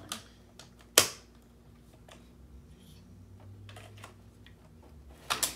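Hard plastic toy parts clicking and snapping as pieces of a Giant Eggman Robot toy are fitted together by hand, with one loud snap about a second in and a quick cluster of clicks near the end.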